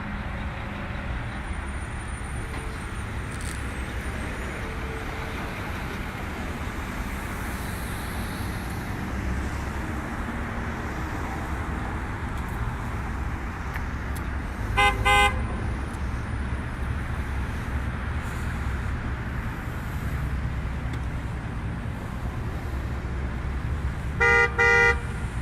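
Road traffic passing steadily, with car horns honking as drivers toot in support: one short honk about fifteen seconds in and a quick double honk near the end.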